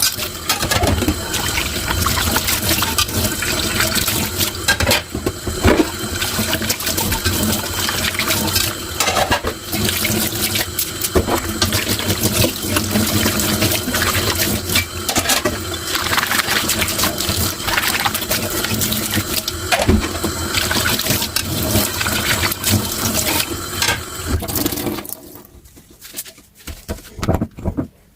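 Tap water running into a kitchen sink during dishwashing, with frequent knocks and clinks of dishware. The running water stops about three seconds before the end, leaving only quieter occasional clicks.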